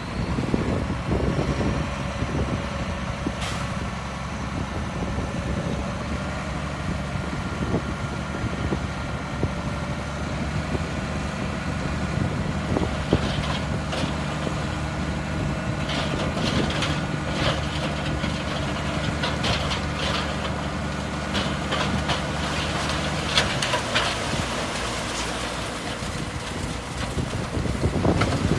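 Bulldozer's diesel engine running under steady load, with a run of metallic clanks and rattles through the middle and second half. The engine's note drops and changes near the end.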